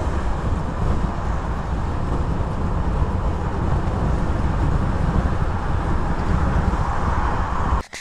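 Steady drone of engine and road noise inside a heavy lorry's cab while it drives on a motorway. It cuts off suddenly near the end.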